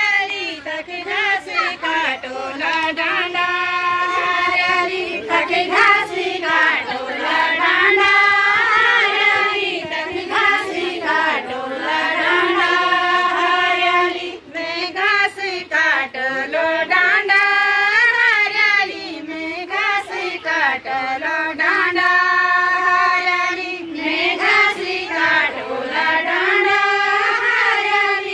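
A group of women singing a chanchari folk song in unison, a repeating melodic refrain in high voices, with short breaths between phrases.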